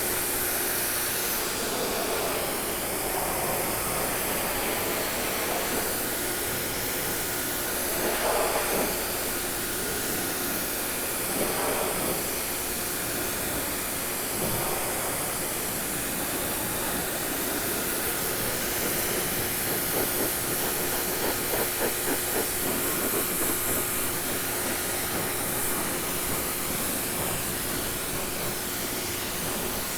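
Prymax 3000 PSI electric pressure washer spraying a steady jet of water onto a wood deck railing, a continuous hiss with a steady hum underneath. The spray swells briefly a few times as the jet moves across the surface.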